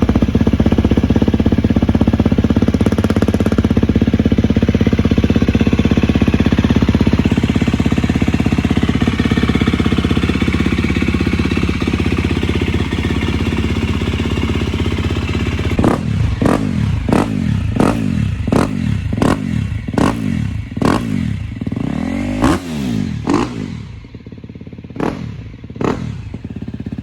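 2019 KTM 250 SX-F's single-cylinder four-stroke engine through a new FMF titanium exhaust, running loud and steady for about fifteen seconds, then revved in a quick series of sharp throttle blips, each falling straight back, barking. It settles lower near the end.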